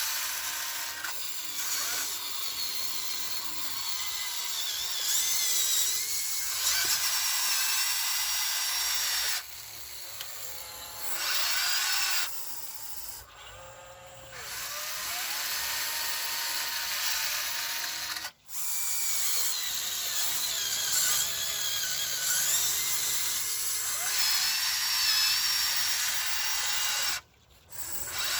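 Huina 1599 RC excavator's electric motors whining and whirring through its gears as it works. The motors start and stop repeatedly, with the pitch sliding up and down as each movement speeds up or slows, and a few brief pauses between moves.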